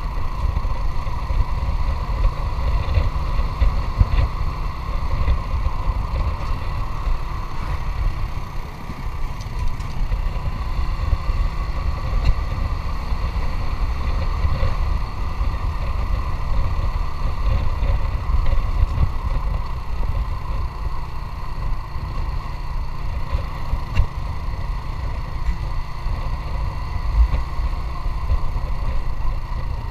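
Motorcycle engine running steadily while riding: a steady engine tone over a heavy low rumble.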